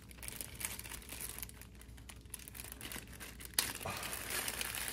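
Clear plastic zip-lock bag being pulled open and crinkled by hands, with faint rustling and a sharper crackle about three and a half seconds in.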